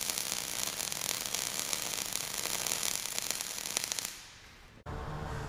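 Electric arc welding laying a bead, a steady crackling sizzle with spatter, dying away about four seconds in. A low hum of room tone follows in the last half second.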